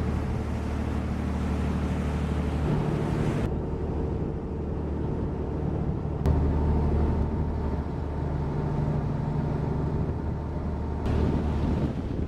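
A boat's engine running steadily at low speed, with wind and water noise over it; the engine's low note shifts a few times.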